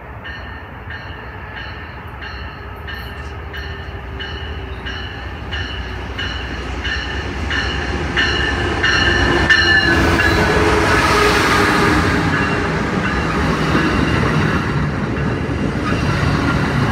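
Amtrak Pacific Surfliner passenger train, led by a Siemens Charger diesel locomotive, pulling into the station. Its bell rings steadily, about three strokes every two seconds, as it approaches. About nine seconds in the bell stops and the locomotive and wheels on the rails become loud as the train passes close by, with the cars rolling past after it.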